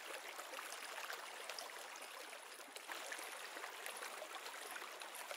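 Small mountain creek trickling over rocks: a faint, steady rush of running water.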